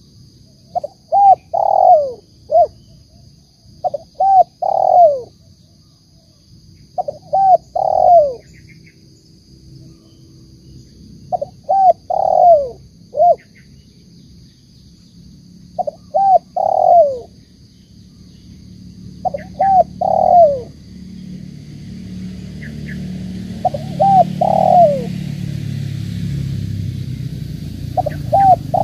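Spotted dove (tekukur) cooing: a phrase of two or three short notes and a longer falling coo, repeated about every four seconds, eight times. In the second half a low rumble builds up beneath the calls.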